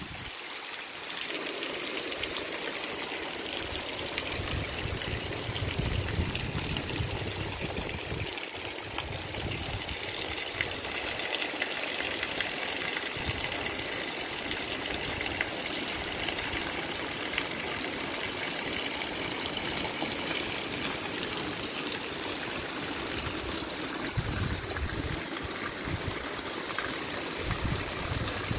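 Steady heavy rain falling on wet ground and puddles, an even hiss with no letup.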